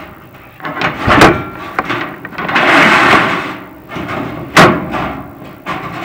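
Inspection camera head and its rod knocking and scraping against the inside of a prefab fireplace's metal chimney flue as it is worked down the pipe: two sharp knocks about three and a half seconds apart, with a longer scrape between them.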